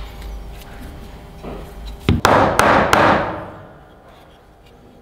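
Wooden knife-handle block being knocked down onto the blade's tang and pins: a sharp click about two seconds in, then three loud knocks in quick succession that fade out.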